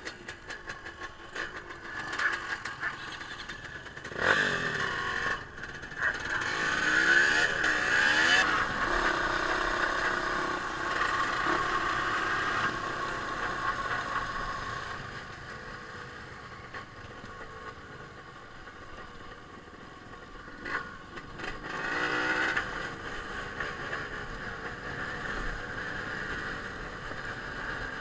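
Off-road trail motorcycle engines running and revving, the pitch rising and falling; the loudest revving comes about four to nine seconds in and again briefly past twenty seconds.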